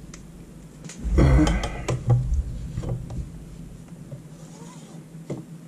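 A steel ruler being picked up and laid on a whiteboard: a rattling metal scrape about a second in, then a few light taps.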